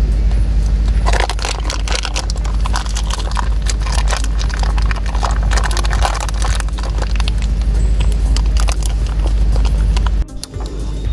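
A metal spoon clinks and scrapes against the glass upper chamber of a siphon coffee maker as ground coffee is spooned in and handled, in a dense run of sharp clicks that thins out after a few seconds. Under it is a loud, steady low rumble, which briefly drops out near the end.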